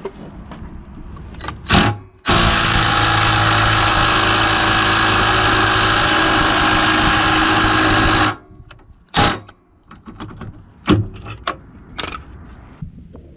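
Cordless impact wrench hammering steadily for about six seconds, starting and stopping abruptly. A few sharp knocks and clicks of handling come before and after it.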